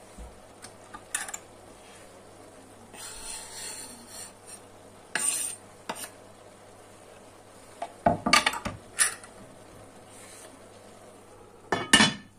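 Clinks and knocks of kitchenware around an enamelled cast-iron casserole, with a soft rustle a few seconds in as chopped dill and garlic go onto the vegetables. The heavy lid is set onto the pot with a clank near the end.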